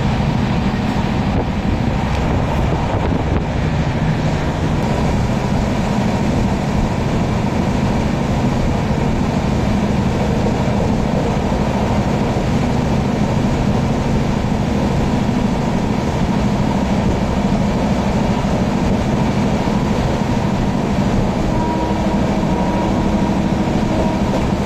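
Steady rumble and rush of an Indian Railways LHB passenger coach running at high speed, heard from inside the coach: wheels on rails under a constant noise.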